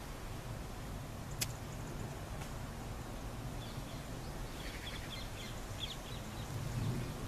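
Steady low rumble and hiss of outdoor background noise, with one sharp click about a second and a half in and a few faint high chirps between about four and six seconds in.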